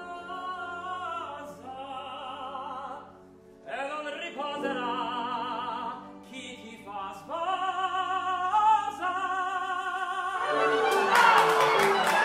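A male opera singer sings an Italian song in phrases with wide vibrato and short breaks, over orchestral accompaniment. Near the end, a burst of rapid hand clapping from the cast joins the orchestra and becomes the loudest sound.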